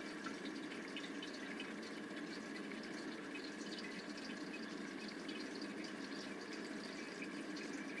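Water trickling and dripping into a sump pump crock as it fills, a quiet steady sound, the level rising toward the float of the raised backup sump pump.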